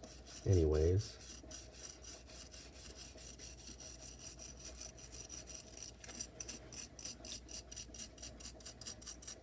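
A brush scrubbing rust off a steel folding-knife blade in repeated back-and-forth strokes, speeding up to about four strokes a second in the second half.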